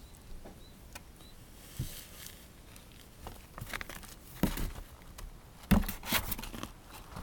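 Kittens moving about and playing: scattered light taps and rustling, with louder thumps about four and a half and six seconds in.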